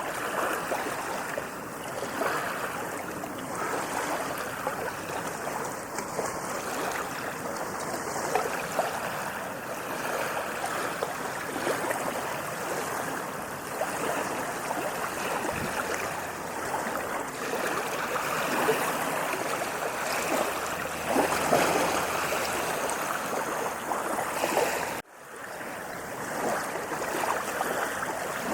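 Waves washing on a sandy beach: a continuous rush of surf that swells and eases gently. Near the end the sound cuts out for an instant and then builds back up.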